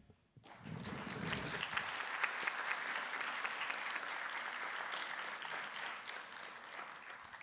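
Audience applauding, starting about half a second in and slowly dying away toward the end.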